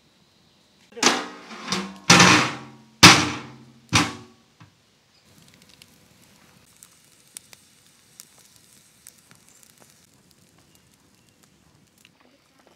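Five loud, ringing metal clanks on a large metal cooking pot in quick succession, each dying away within about half a second. After them comes the faint crackle of the wood fire burning under the pot.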